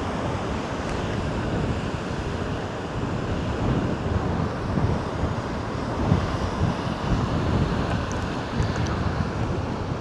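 Wind buffeting the microphone in uneven gusts over the continuous rush of large surf breaking.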